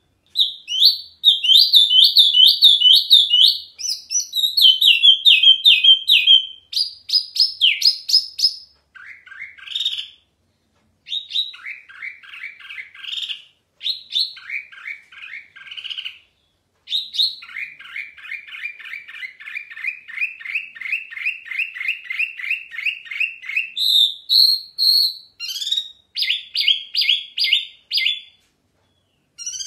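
Caged wambi mini singing loudly and continuously: varied fast phrases and chattering trills with short pauses, including a long run of quick repeated notes in the middle.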